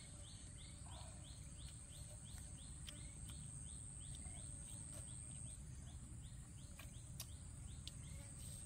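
Faint forest wildlife: a rapid chirp repeating about three times a second over a steady high whine and a low rumble, with a few sharp clicks near the end.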